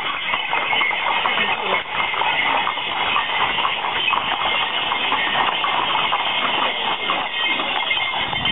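Horses' hooves clip-clopping as several ridden horses pass close by, a dense, irregular run of knocks. A steady high-pitched tone runs underneath.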